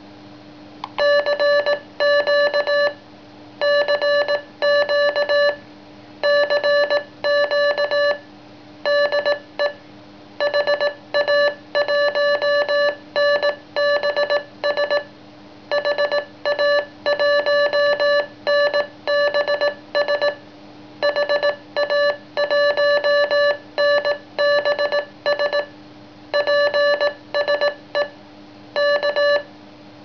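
Morse code side-tone from a Memory Mic-Key keyer playing back a stored CW message, a CQ call signed HA1NBS ending 'PSE K'. A single steady beep keyed on and off in dots and dashes, starting about a second in.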